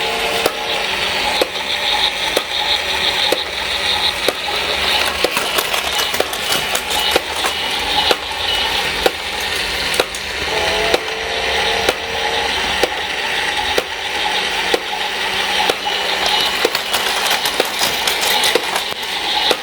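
Battery-powered Plarail toy train running on plastic track: a steady motor whirr under a dense clatter of small clicks. A short pitched sound comes near the start and again about halfway through.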